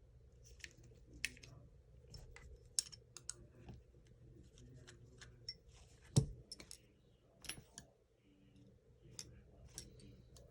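Small parts of an airsoft rifle gearbox being handled during disassembly: irregular light clicks and taps, with one louder knock about six seconds in.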